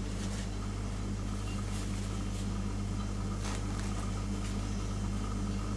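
A steady low mechanical hum, like a household appliance or fan running, with a few faint soft clicks.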